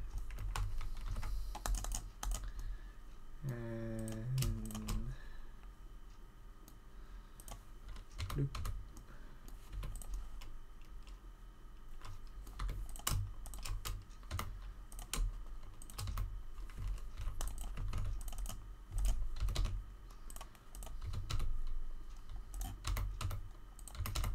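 Computer keyboard keys and clicks tapped irregularly and quickly, as shortcuts are pressed during 3D modelling work. About four seconds in, a brief low hummed voice sound.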